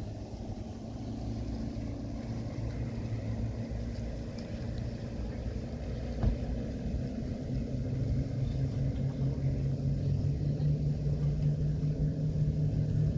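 A motorboat's engine running steadily, its hum climbing in pitch and loudness about halfway through as it speeds up. A single knock about six seconds in.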